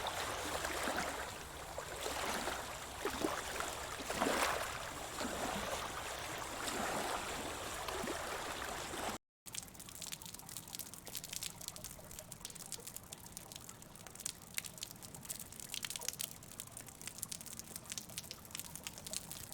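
Water trickling and splashing, cut off suddenly about nine seconds in, followed by a quieter stretch of scattered clicks and crackles.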